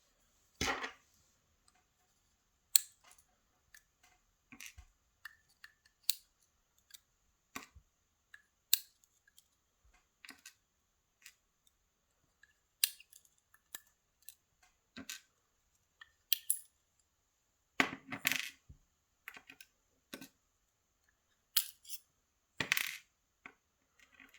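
Small metal lock pins being handled and set down on a hard surface: sharp, light metallic clicks and taps at irregular intervals, with a couple of longer rattling clatters in the second half.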